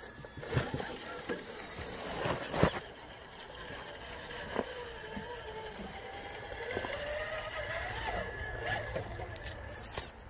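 Electric RC scale crawler's motor and geartrain whining, the pitch wandering up and down with the throttle as it creeps over rocks and logs. Clicks and knocks of tyres and chassis against the obstacles break in, the sharpest about two and a half seconds in.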